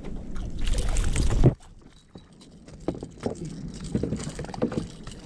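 A hooked kahawai being brought aboard a fishing kayak: a loud rush of water and handling noise that cuts off suddenly about a second and a half in, then irregular knocks and taps against the hull.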